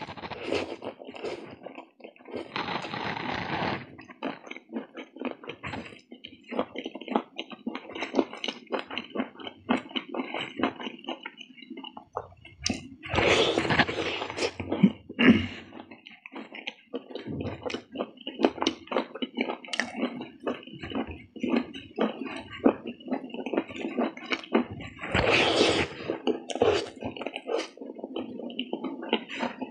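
Close-miked mukbang eating: a person chewing and smacking through a plate of noodles, momos and meat, a fast run of wet clicks and mouth noises, with three longer, louder sounds about 3, 13 and 25 seconds in.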